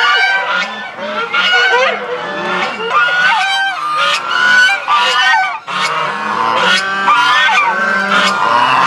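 A flock of domestic Chinese geese honking at close range, many loud calls overlapping with hardly a pause.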